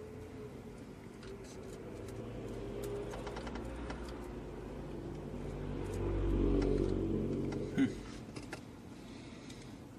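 A vehicle engine hum that swells for several seconds and then fades, with scattered light clicks and a short sharp squeak falling in pitch near the end.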